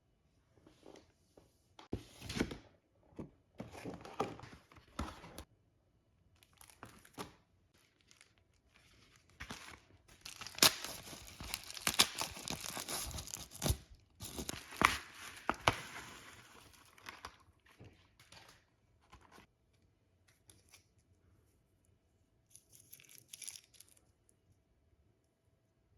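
Packaging torn open and crinkled by hand: a few short rips and rustles, then a longer run of tearing and crinkling with sharp clicks from about ten to seventeen seconds in, and a brief rustle near the end.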